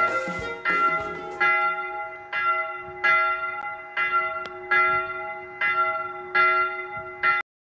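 A single church bell tolling, struck a little faster than once a second, each stroke ringing on into the next, until the sound cuts off suddenly near the end.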